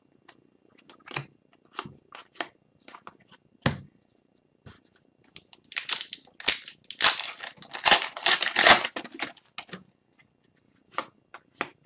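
Upper Deck hockey trading cards handled and slid against one another as a pack's cards are flipped through: scattered light taps and clicks, with a louder stretch of card rustling in the middle.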